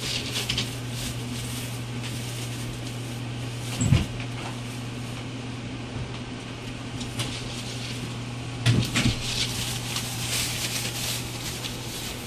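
Rottweiler puppies shuffling through shredded-paper bedding in a plywood box, the paper rustling and crinkling, with two dull thumps about four and nine seconds in. A steady low hum runs underneath.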